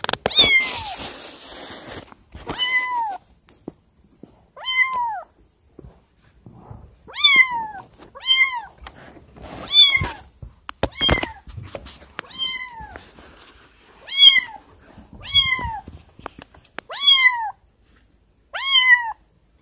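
Young tabby kitten meowing over and over, about a dozen loud cries one to two seconds apart, each rising and then falling in pitch: the distress calls of a kitten separated from its mother. A rustling noise near the start.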